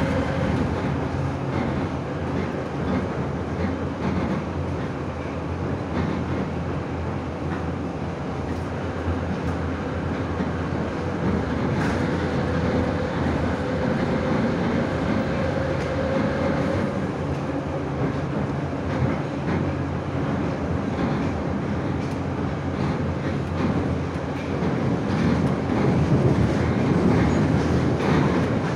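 Moscow metro train running at speed, heard from inside the car by the doors: a steady rumble of wheels on the track, with a faint whine held for a few seconds about halfway through.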